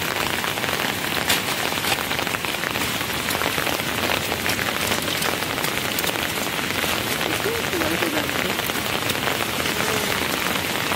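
Steady rain falling, an even hiss with many small drop ticks, with a brief faint voice about seven and a half seconds in.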